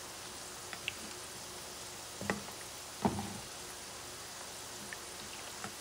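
Wooden spoon stirring a liquid beef and carrot stew in a cast iron skillet, knocking against the pan a few times, most sharply twice a little over two and three seconds in. Underneath is a faint, steady simmer.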